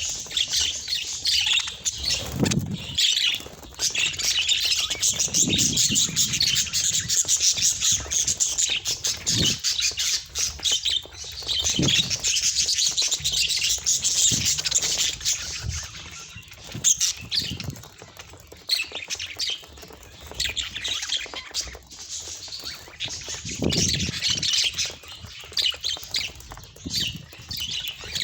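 Budgerigars chattering, chirping and squawking continuously, with a few soft low thuds.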